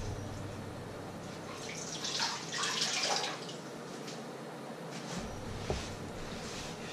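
Kitchen tap running into a sink for about a second and a half, water splashing, about two seconds in. A low steady hum cuts off about five seconds in, followed by a light click.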